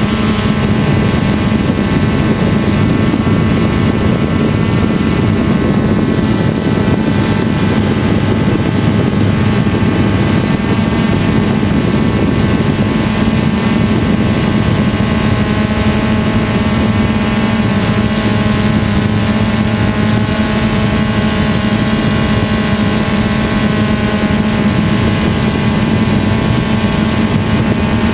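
DJI Phantom quadcopter's electric motors and propellers whirring steadily at a constant pitch, heard from the GoPro carried on the drone itself.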